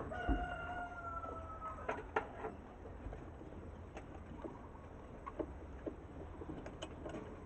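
Small metal clicks and knocks as the parts of a car starter motor are handled and fitted together. Near the start, a steady tone with a slight fall in pitch sounds for about a second and a half.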